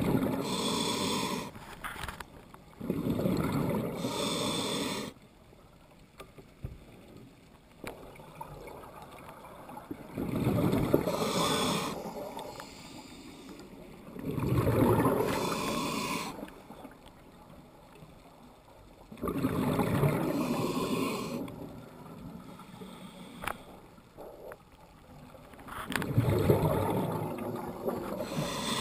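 Scuba breathing through a demand regulator underwater, with exhaled air bubbling out. Each breath is a rush lasting one to two seconds, about six of them at a steady pace of roughly one every four or five seconds, with quieter water between.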